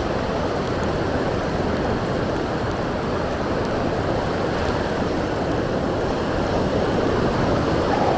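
Steady rush of surf on a beach mixed with strong wind, with some low wind rumble on the microphone.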